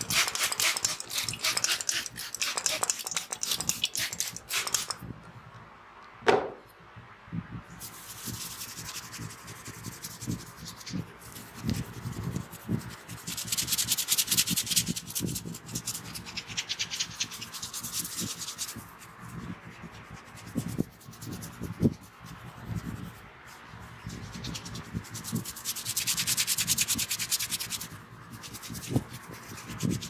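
Fingers rubbing and scrunching hair against the scalp close to the microphone: a crackly, scratchy rustle that comes and goes in bouts. About six seconds in there is one sharp snap, the loudest sound.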